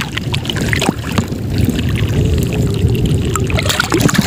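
Seawater sloshing and splashing around people wading chest-deep through shallow water, with a steady low rumble underneath.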